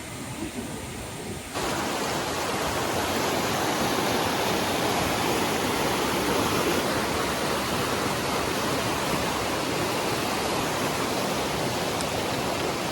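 Steady rushing of water, a dense even hiss that starts abruptly about one and a half seconds in after a quieter stretch.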